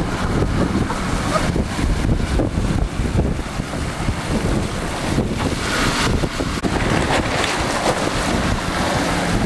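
Four-wheel drive wading through a deep river, water surging and splashing around the body as it pushes a bow wave, with heavy wind rumble on the microphone.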